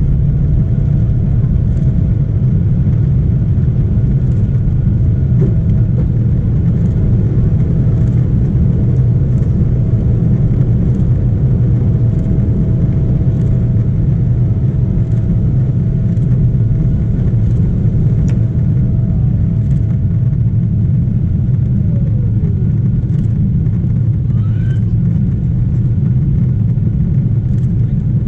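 Cabin noise of a Boeing 777-300ER in its takeoff climb: the GE90-115B engines at high thrust give a loud, steady rumble. A faint steady whine runs beneath it and slides down in pitch about twenty-two seconds in.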